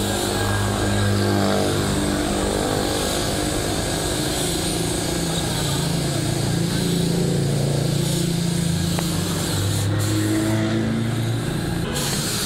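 Compressed-air paint spray gun hissing steadily as it sprays paint, over a low droning hum that shifts in pitch every second or two.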